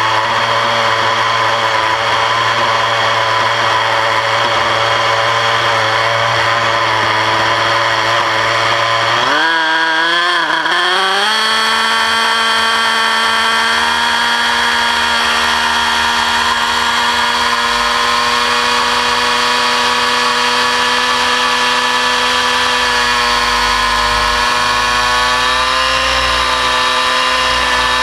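A 600-size nitro RC helicopter's glow engine runs steadily at idle. About ten seconds in it throttles up, rising in pitch as the rotor head spools up, and then holds a steady, higher drone at flight speed.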